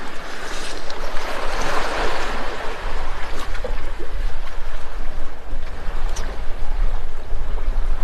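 Wind rumbling on the microphone over a steady wash of sea surf, swelling about two seconds in.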